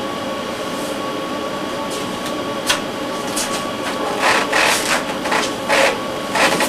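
Steady background hiss with a faint steady hum, broken by a few short soft rustles about halfway through and toward the end as book pages are handled.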